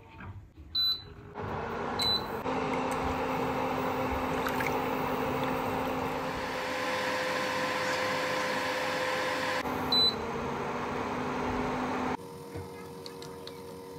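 Induction cooker beeping short high beeps, twice near the start and once about ten seconds in, as its touch controls are used. In between, its cooling fan and coil hum run steadily while the coconut-milk pudding mixture heats in the pan, and the hum drops to a quieter level near the end.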